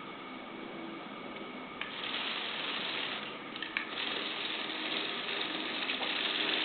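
Lego Technic remote-controlled tracked robot driving: its small electric motors whine while the plastic gears and tracks clatter, growing louder about two seconds in, with a few sharp clicks near the middle.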